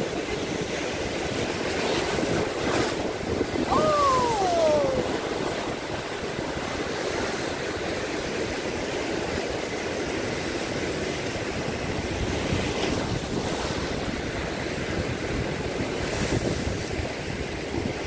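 Rough sea surf breaking and washing over shoreline rocks, with wind buffeting the microphone. A short falling call sounds once about four seconds in.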